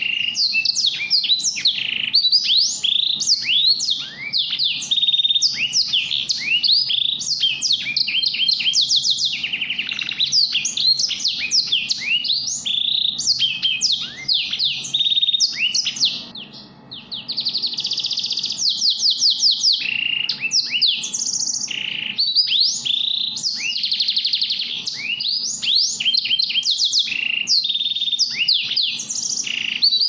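Small finches chirping and trilling without a break: many quick, high, mostly falling notes, with a short lull about halfway through.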